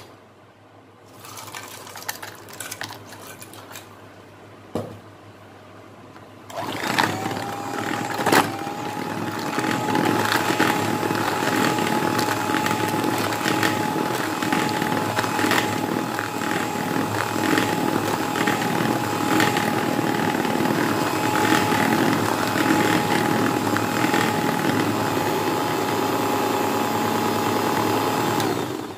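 Electric hand mixer switched on about seven seconds in, its whine rising briefly as it comes up to speed, then running steadily as its beaters whisk a thin flour-and-water ghevar batter with ice cubes in it. It stops just before the end.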